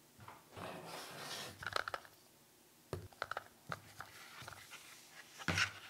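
Objects handled on a tabletop: a heavy desk tape dispenser is slid away and a roll of duct tape is set down, with rustling, scraping and several small knocks, and one louder knock near the end.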